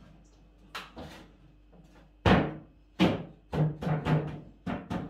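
Hollow wooden knocks and thuds from a wooden aquarium canopy being pushed and bumped down into place on top of a glass tank: about eight knocks in a row, the loudest a little over two seconds in.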